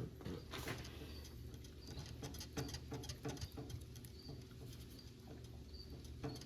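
Irregular soft tapping and dabbing, typical of a brush stippling resin into fiberglass cloth to press it down, with brief high chirps about once a second over a steady low hum.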